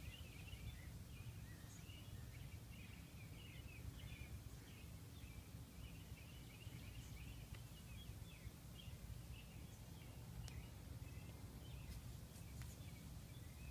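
Faint outdoor ambience: birds chirping on and off over a low steady rumble of background noise, with a couple of faint clicks near the end.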